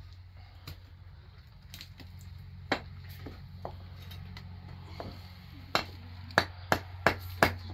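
Hand hammering at the top of a concrete-block wall under wooden roof beams: a few scattered knocks, then a quick run of sharp blows about three a second in the last two seconds, over a steady low hum.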